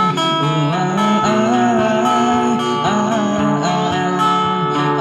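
Acoustic guitar strummed with a melody line over it, an instrumental passage between sung lines of a pop song.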